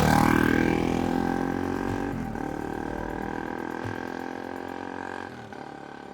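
Motorcycle engine running past at its loudest, then pulling away, its note fading over about five seconds with a brief dip in pitch a couple of seconds in.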